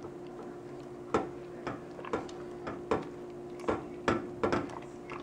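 A stirring utensil clicking against the side of a stainless steel pot, about a dozen irregular knocks roughly every half second, as moong dal flour and water are mixed into a lump-free batter. A faint steady hum runs underneath.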